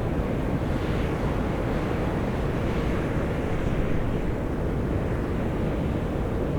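Volcanic fumarole vents on Mt. Io (Atsusanupuri) hissing and rushing steadily as steam and gas jet out, a continuous low rumble with no breaks.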